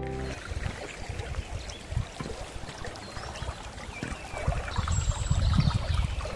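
Brook water rushing and trickling close by, with irregular low rumbles on the microphone growing louder near the end.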